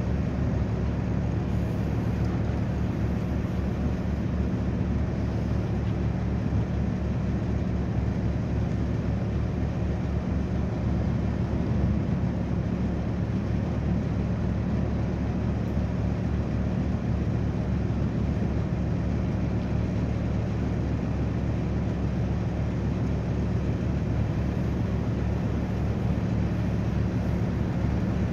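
Steady drone of a passenger riverboat's engine while the boat is under way, an even hum over a low rumble.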